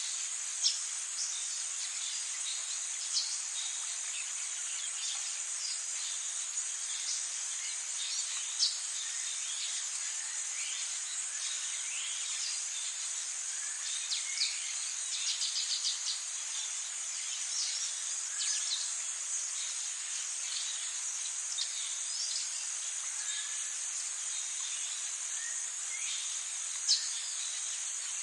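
A steady high-pitched insect chorus, with birds calling in short chirps and brief trills over it.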